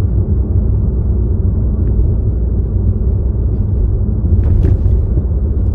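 Steady low rumble of a car driving, heard from inside the cabin: engine and tyre road noise, with two faint clicks near the end.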